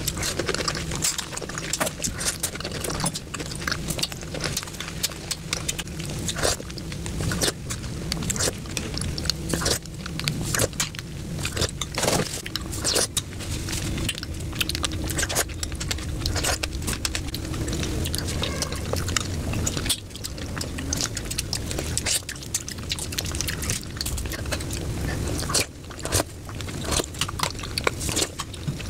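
Close-miked chewing of fresh fruit, pomegranate arils and spoonfuls of a pink milky strawberry dessert, with many small crisp crunches and wet mouth sounds.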